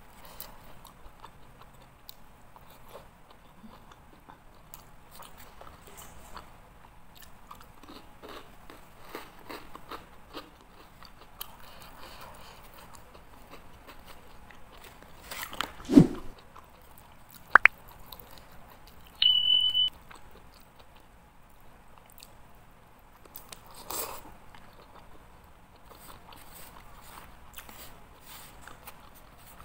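Close-up mouth sounds of eating by hand: chewing and crunching with small clicks, as rice and spicy-cooked land snail meat are eaten. About halfway through comes a loud thump, followed by a sharp click and a short high beep.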